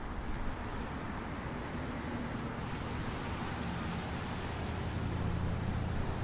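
Steady outdoor background rush with no siren sounding, and a low engine-like hum that grows louder after about four seconds.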